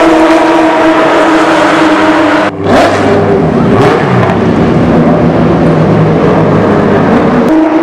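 Porsche race cars' engines running hard at speed past the track. A steady engine note breaks off in a short dip about two and a half seconds in, and a rougher engine sound takes over.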